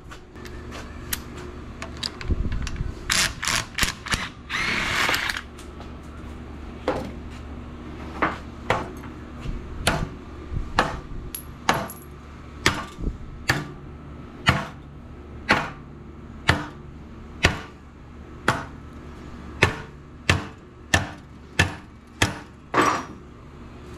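Hammer blows on metal, used to work loose a stuck part on a scrap generator engine. A few quick strikes and a scrape come near the start, then a long run of single hits about one a second.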